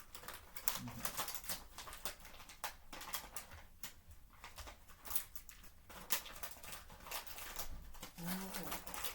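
Plastic gummy candy wrapper crinkling and rustling in irregular bursts as the package is handled and opened, with two brief hums of voice, one about a second in and one near the end.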